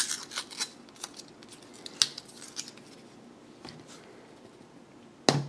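Scattered small clicks and crinkles of a plastic spice-jar cap being worked open and its inner seal broken. Near the end, a quick, even run of sharp taps starts.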